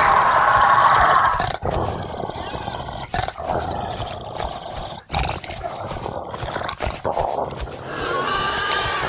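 Deer bellowing: a loud drawn-out call runs into the first second and a half, followed by quieter broken calls, and a new call builds near the end.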